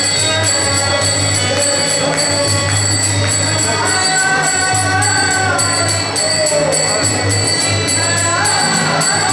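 Bhajan singing: a man's voice leads a devotional melody into a microphone over a steady metallic jingling beat, about three strokes a second, and a steady low hum.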